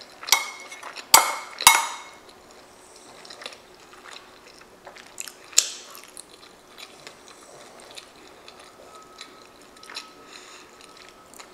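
Metal spoon clinking and scraping against a ceramic bowl: three loud clinks in the first two seconds and another about halfway through. Quiet chewing and small mouth sounds fill the gaps.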